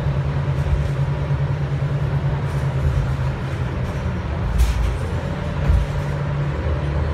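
Cabin sound of a 2000 Neoplan AN440A transit bus driving at steady speed: a steady low engine drone under road noise, with two brief knocks about four and a half and nearly six seconds in.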